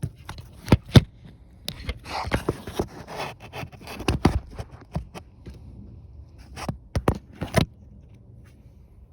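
A run of sharp clicks, knocks and scraping as objects are handled, stopping after about seven and a half seconds.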